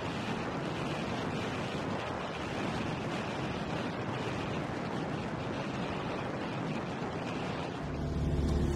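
Steady rushing road and wind noise from a vehicle driving along a paved road, with no distinct events. Near the end it gives way to a louder, lower rumble heard inside the vehicle.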